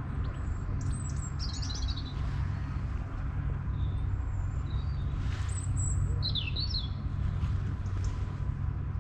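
Small birds chirping and trilling in short high phrases, twice, over a steady low rumble.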